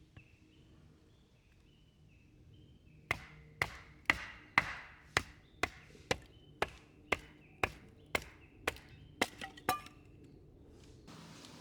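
Firewood being chopped by hand: a run of about fourteen sharp wooden strikes, about two a second, starting about three seconds in.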